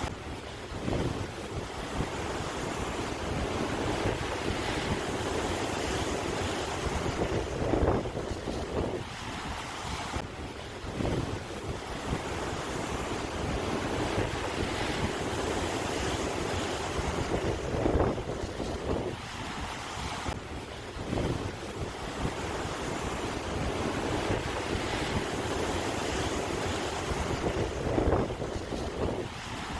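Sea waves breaking and washing on the shore in a continuous rush, surging louder about every ten seconds.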